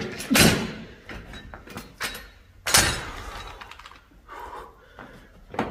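A strained groan as a set of seated dumbbell shoulder presses ends, then heavy dumbbells thudding and knocking several times as they are set down on the floor and lighter dumbbells are picked up.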